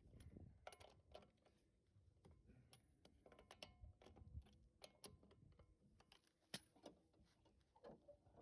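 Faint, irregular light clicks and clinks of small metal parts and hand tools being handled, a few sharper knocks among them.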